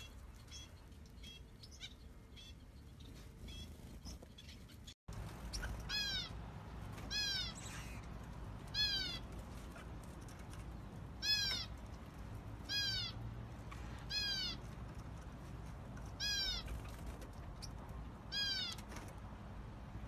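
Caged finches calling. Faint short chirps at first, then from about six seconds in one bird repeats a short, clear, downward-arching call about every one to two seconds.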